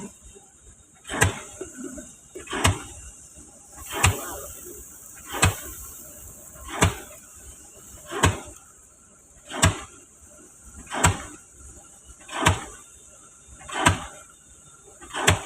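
Pile-driving hammer striking a spliced pile in a steady rhythm: heavy blows about one every 1.4 seconds, each with a short ring, over a steady high hiss.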